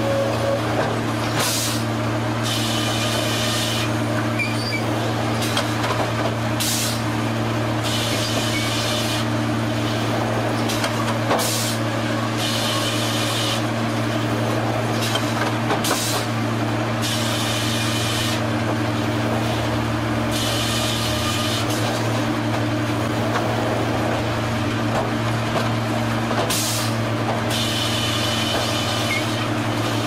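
Sawmill headrig and log carriage machinery running with a steady hum, broken every few seconds by short hissing bursts.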